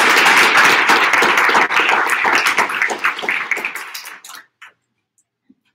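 Audience applauding, the dense clapping thinning to scattered claps and dying away about four seconds in.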